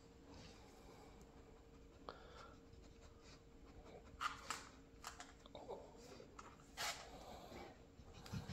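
German shepherd sniffing in a few short, faint bursts while searching for a hidden treat by scent, over a faint steady hum that stops about six seconds in.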